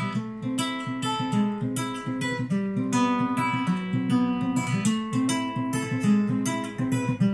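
Acoustic guitar music, strummed and picked, played from a laptop through a small DIY three-transistor discrete amplifier and its speaker, with no deep bass.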